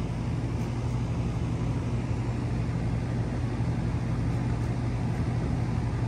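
Steady machinery hum of running refrigeration equipment: a constant low drone with an even hiss over it, unchanging throughout.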